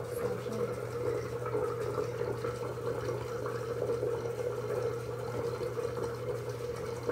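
Bathroom sink tap running steadily into the basin, over a low steady hum.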